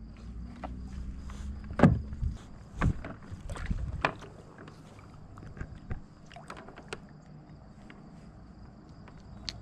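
Knocks and clicks of a crappie being handled in a kayak and clipped onto a rope fish stringer, the loudest knock about two seconds in and lighter clicks after. A faint steady high tone runs underneath.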